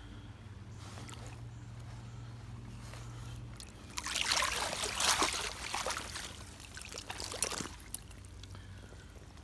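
Creek water trickling, then from about four seconds in a few seconds of splashing and sloshing as a caught brown trout is held in the water to revive it before release.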